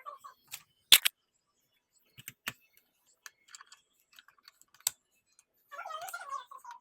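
Scattered sharp clicks and taps of console parts and tools being handled during reassembly of an Xbox Series X, the loudest a pair about a second in. Near the end a short warbling, pitched sound.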